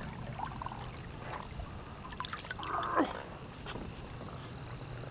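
Water splashing and trickling at the side of a boat as a hooked catfish is brought up on rod and reel. A steady low hum runs underneath, with a few small clicks and a brief vocal sound about three seconds in.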